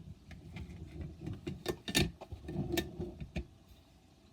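Irregular small plastic clicks and handling noise as a graphics card's fan cable connector is worked loose from the board. The sharpest click comes about two seconds in.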